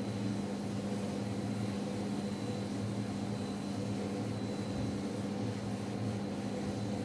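A steady low mechanical hum, even throughout, with a faint high whine above it.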